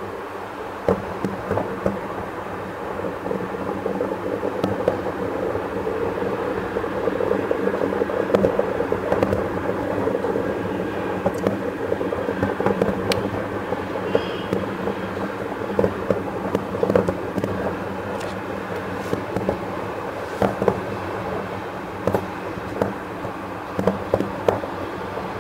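Aerial fireworks shells exploding in quick succession: a continuous rumble of overlapping booms, with many sharper bangs standing out throughout.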